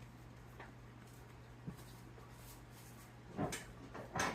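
A few soft knocks and handling noises of kitchen work at the counter over a steady low hum, with a louder short knock near the end.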